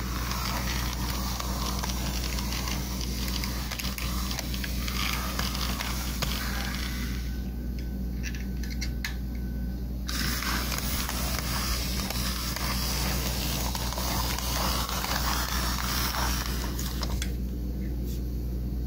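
OO gauge model train running along the track, a small tank locomotive with a Dapol-built Iron Mink van: a steady motor hum under a rushing, scraping noise of wheels on rail. The rushing eases off for a few seconds around the middle, then picks up again.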